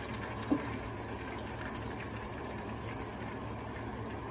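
Egg-battered broccoli florets deep-frying in hot oil in a pan, a steady sizzling hiss, with a brief knock about half a second in.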